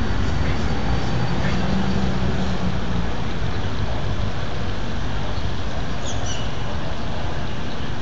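Steady street traffic noise, with one vehicle's low engine hum standing out for the first few seconds.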